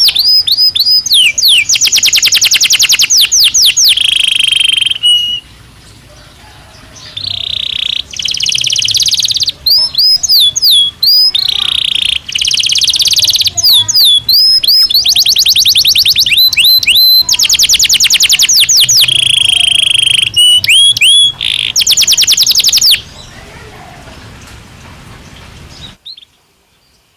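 Belgian canary singing loud, fast trills and rapidly repeated sweeping chirps in phrases. The song breaks off briefly about five seconds in, then runs on and stops a few seconds before the end.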